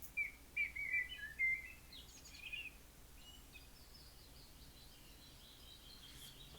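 Small birds chirping faintly: a quick run of short chirps in the first few seconds, then thinner, higher calls.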